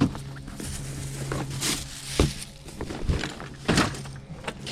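Fishing gear being handled and set down: several separate dull thunks and knocks, over a steady low hum.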